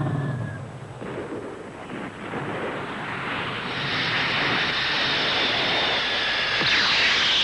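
A steady rushing roar like an aircraft passing, which dips about a second in, then swells from about two seconds in and holds loud.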